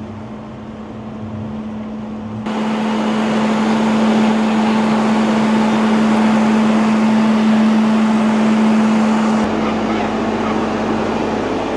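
An engine running steadily with a constant droning hum, becoming suddenly louder and fuller about two and a half seconds in.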